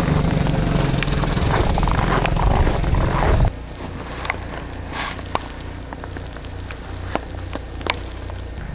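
Wind buffeting the microphone with irregular crunching steps in snow. About three and a half seconds in, the sound cuts abruptly to a quieter low hum with a few scattered crunches.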